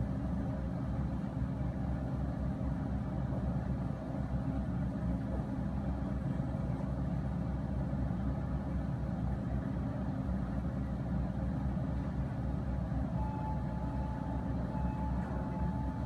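Komatsu hydraulic excavator's diesel engine running as it digs and lifts a bucket of dirt: a steady low rumble, with a thin high whine joining near the end.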